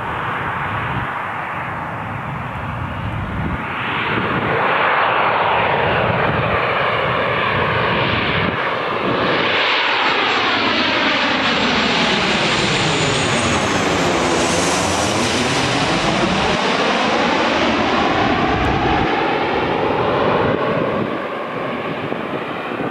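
Boeing 737-900ER's CFM56-7B turbofans on final approach, passing low directly overhead. The loud jet noise builds about four seconds in and holds. As the jet goes over, a sweeping tone falls and then rises again, with a brief high whine. It eases a little near the end as the airliner moves away.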